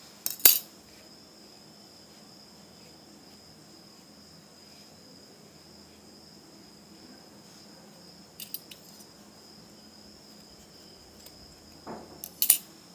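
Scissors snipping through wool yarn while trimming a tassel: a sharp snip about half a second in, a few small clicks around eight and a half seconds, and another snip near the end. A steady high-pitched tone runs underneath throughout.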